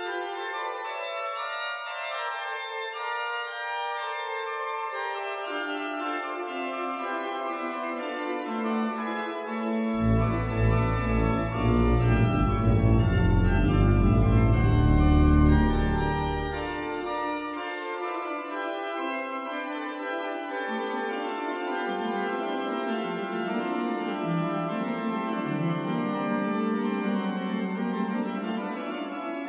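Church organ playing slow sustained chords, typical of the closing voluntary after Evensong. Deep pedal bass notes come in about ten seconds in, where it is loudest, and drop out again a few seconds later.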